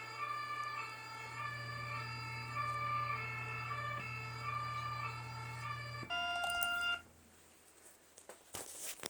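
An electronic two-tone siren alternating between a higher and a lower pitch, like an ambulance siren. About six seconds in it switches to a single steady tone for about a second, then cuts off.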